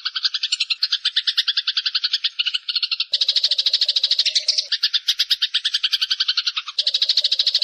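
Dense, rapid trilling calls from an edited songbird mastering recording, several pulsed voices layered at about ten pulses a second. They cut in abruptly and switch to a different mix about three seconds in and again near the end, where a lower pulsing call joins in.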